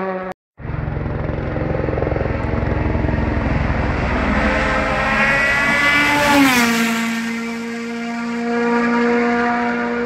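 Ford Puma Rally1 rally car flat out on tarmac: the engine's pitch climbs as it approaches, drops sharply as it passes about six seconds in, then holds steady as it pulls away. Shortly before the car, the sound breaks off for a moment about half a second in.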